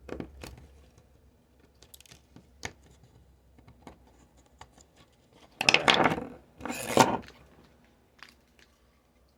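Hands-on disassembly of a Samsung Galaxy Tab 3 tablet: small clicks and taps of parts and tools, with two louder scraping rustles about six and seven seconds in.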